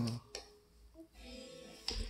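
Faint Spanish song playing from a Bluetooth speaker some distance away, with a single short click about a third of a second in.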